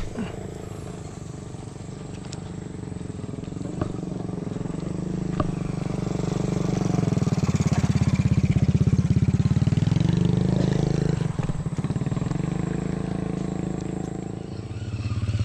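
Spinning reel being cranked to retrieve line after a cast, its gears giving a fast, even buzz that swells in the middle and eases off near the end, with a few light clicks before it.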